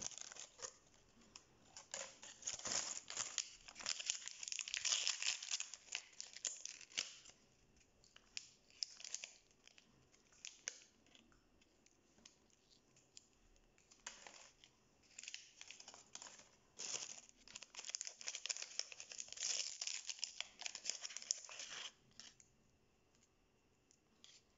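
Small foil and plastic toy wrapper bags crinkled and torn open by hand, in two long spells of crackling rustle, the second starting about halfway through.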